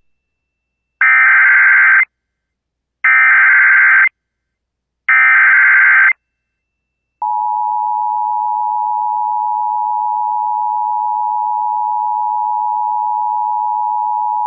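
Emergency Alert System broadcast: three one-second bursts of screeching digital SAME header data, a second apart, carrying the coded flash flood warning. About seven seconds in, the steady EAS two-tone attention signal starts and holds.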